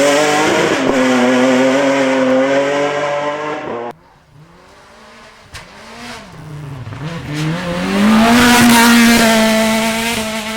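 Rally car engine held at high revs. About four seconds in, the sound cuts abruptly to a quieter engine whose pitch falls and rises again as it brakes and accelerates. From about eight seconds it is back to loud, steady high revs.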